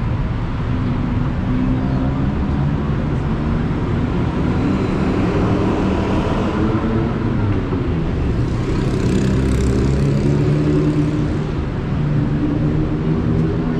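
Busy city road traffic running steadily: engines hum under the hiss of tyres, with the noise swelling louder twice in the middle.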